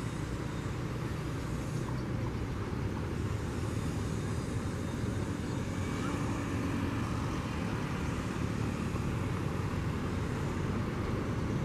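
Steady outdoor background noise with a low rumble, like distant road traffic.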